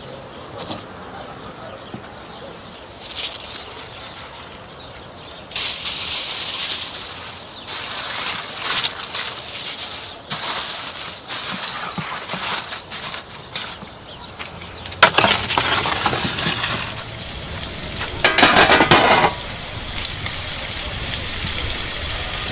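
Aluminium foil crinkling and rustling in repeated bursts as it is pulled over a roasting pan and pressed down around the edges, with two louder, longer bursts of crumpling later on.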